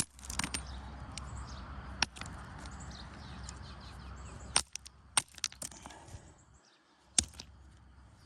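Sharp stone-on-stone clicks of chert rocks being knocked and struck to test them for flintknapping: scattered single strikes, a quick run of several about halfway through, and one more near the end.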